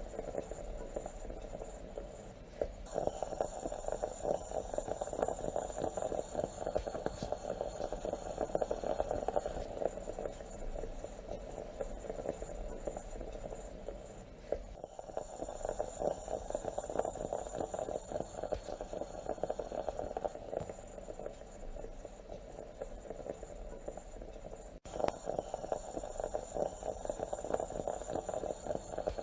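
Stovetop moka pot bubbling and sputtering as the brewed coffee rises into the upper chamber, a dense steady crackle. It cuts and restarts abruptly three times, like a repeating loop.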